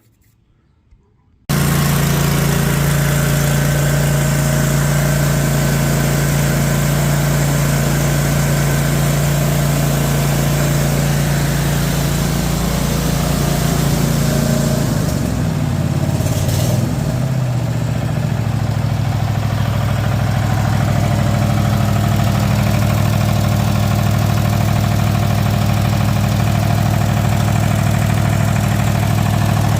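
Cub Cadet lawn tractor's twin-cylinder engine running steadily at idle, warming up now that it runs after a new starter solenoid and cleaned ignition coils. It comes in abruptly about a second and a half in, and its note wavers briefly near the middle before settling again.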